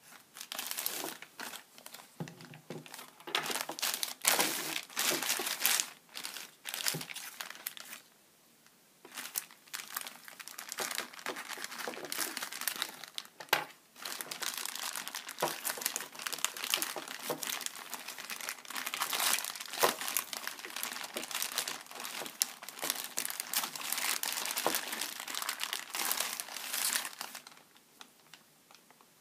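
Thin clear plastic packaging bags crinkling and rustling as they are handled and opened, in irregular bursts with a short pause about eight seconds in, dying away near the end.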